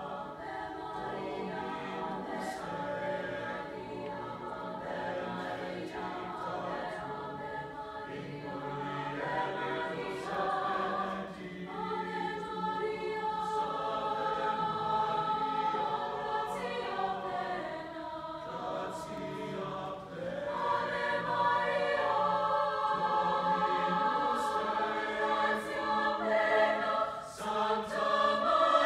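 Mixed choir of women's and men's voices singing a choral piece in sustained chords, growing louder about two-thirds of the way through.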